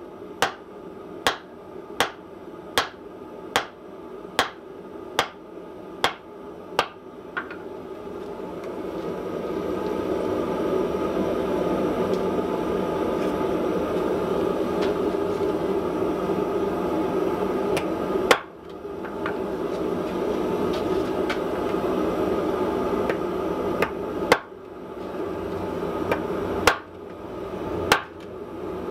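Hand hammer striking red-hot nail stock on a small wrought-iron stump anvil with a spring-steel face, drawing out a taper: an even run of about ten blows, a little over one a second. Then the hammering stops and a steady rushing noise swells and holds for about fifteen seconds, broken by a single blow, before a few more blows come near the end.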